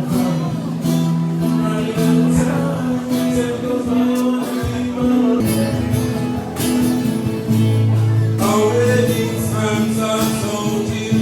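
Background music: a song with singing over strummed acoustic guitar.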